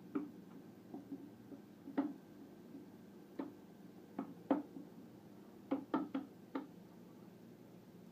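About a dozen short, sharp knocks or taps at uneven intervals, some close together in pairs and clusters, over a steady low hum.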